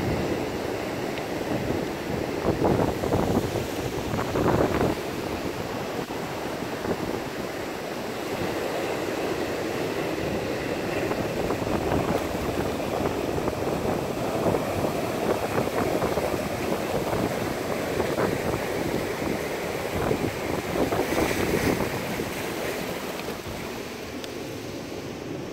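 Ocean surf washing in over shoreline rocks: a steady rush of foaming water that swells in surges.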